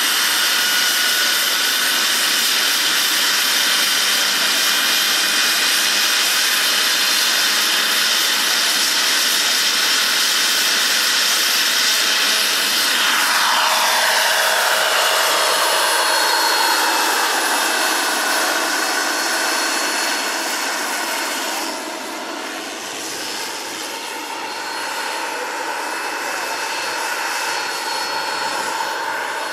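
Turbine engine and rotors of a large (about 2 m rotor) radio-controlled Hughes 500E scale-model helicopter: a steady high turbine whine with rotor noise as it runs on the ground, then lifts off and flies. About halfway in, its tones glide down in pitch, and the sound grows a little quieter later on.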